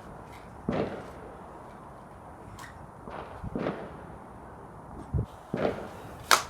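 Fireworks going off: several separate bangs and pops a second or two apart, the sharpest one near the end.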